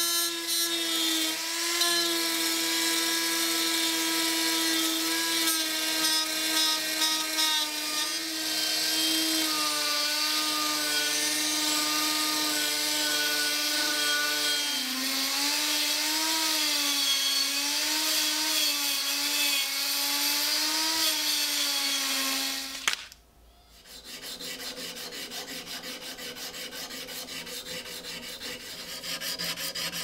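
Handheld rotary tool with a spinning disc running with a steady high whine, its pitch sagging and wavering as the disc is pressed onto a rusty steel knife blade; it cuts off sharply about three quarters of the way through. After a short pause come back-and-forth rubbing strokes of a flat abrasive stick along the blade.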